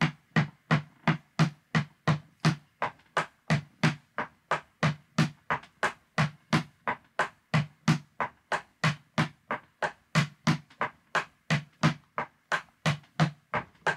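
Metal taps on tap shoes striking a wooden floor in an even, steady rhythm, about three sharp clicks a second, each with a low thud. These are basic tap drills testing the sound of the shoes after repair: the original toe taps, worn thin, were kept, and the heel taps were ground flat.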